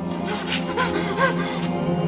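A man sobbing in short, gasping cries, about five in two seconds, over sustained film music.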